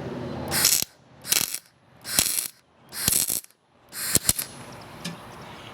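Electric arc welder in five short crackling bursts, each under half a second, with brief pauses between: short welds laid into a drilled-out broken bolt to build it up for welding on a nut.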